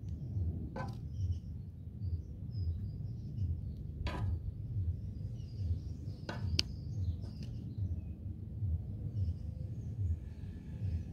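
Birds chirping over a steady low rumble, with a few sharp clicks as grilled pieces are set onto a plate of noodles.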